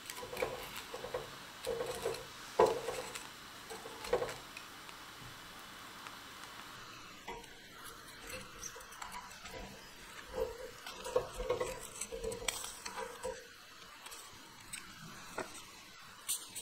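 Mochi rice cake toasting on a wire grill net as it swells and puffs up, with a faint hiss and irregular small crackles and pops throughout.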